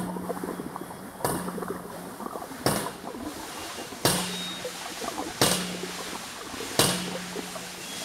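Hydraulic ram pump clacking in its steady cycle, one sharp clack about every 1.4 seconds, each followed by a short hum, with running water behind. Each clack is the pump's waste valve slamming shut as the drive water is driven up to the tank on the hill.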